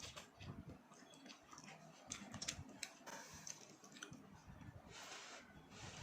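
Quiet eating sounds: chewing with scattered small clicks and taps, and a short rustle about five seconds in.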